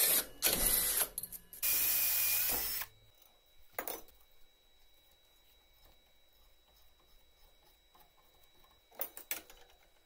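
Cordless drill boring through steel angle, running in two short bursts of about a second each in the first three seconds. After that, only a few faint metal clicks and knocks, one about four seconds in and a cluster near the end.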